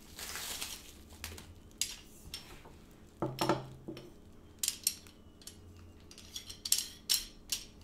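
Metal camera-stand pole sections and base being handled and fitted together: a short rub at the start, then a scattering of sharp clicks and clinks as the parts knock against each other.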